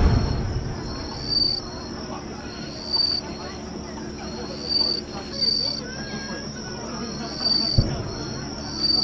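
Insects chirping in short high phrases about every second and a half, over the echoing rumble of a firework burst fading away at the start. Near the end a single dull firework thump.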